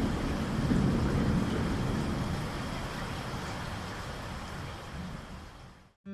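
Thunderstorm ambience: steady rain with a low rolling thunder rumble, fading away and cutting off just before the end.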